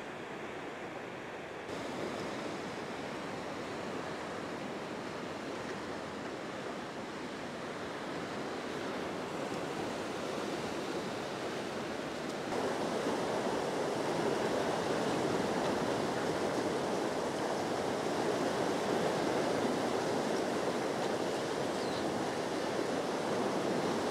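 Floodwater of the swollen Ping River rushing at the weir: a steady, even wash of water noise that gets louder about halfway through.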